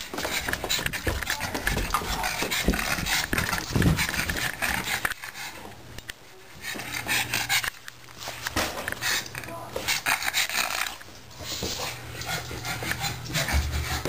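A pug breathing heavily up close during rough play, among scuffling, rustling and knocks; it eases off briefly about halfway through.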